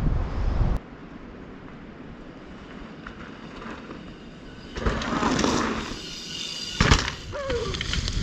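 Mountain bike riding a dirt jump: tyres rushing over dirt about five seconds in, then a sharp thud of the landing near seven seconds. Wind buffets the microphone for the first second.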